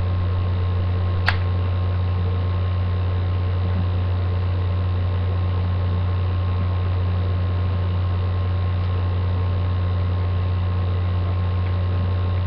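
Steady low electrical hum with hiss, the background of a webcam microphone, with a single sharp click about a second in.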